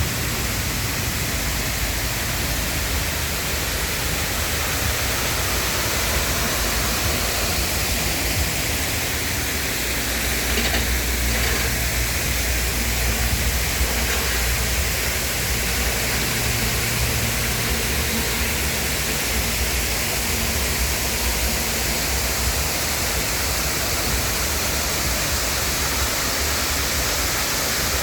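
Small garden waterfall splashing and running steadily, with a constant low rumble and hum underneath.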